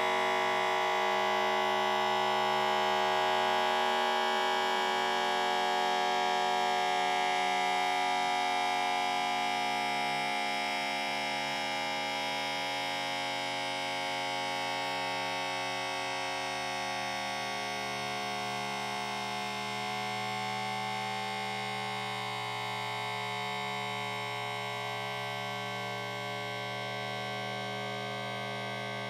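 A man's cough time-stretched many times over, so that it becomes a steady drone of many sustained tones, shifting slowly and gradually getting quieter.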